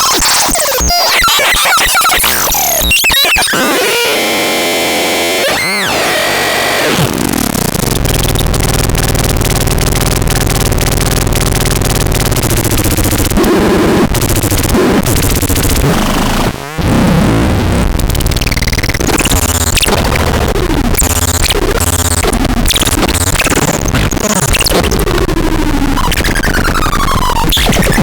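Loud, harsh electronic noise music: dense synthesizer sweeps and gliding tones, joined by a steady low drone about a quarter of the way in, with a brief dropout a little past halfway.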